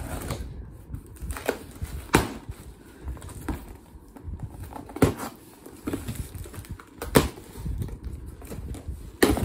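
A scissors blade slitting packing tape on a cardboard box, with scraping and handling of the cardboard and a few sharp knocks about two, five, seven and nine seconds in.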